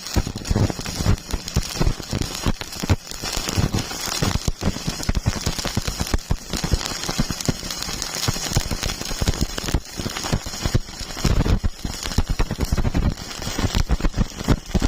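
Stick-welding arc crackling steadily and irregularly as the electrode burns.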